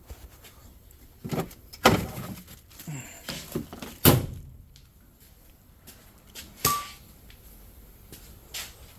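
A series of knocks and thunks from the side-by-side's door and plastic body panels being handled, the loudest about four seconds in, with a brief high tone near seven seconds.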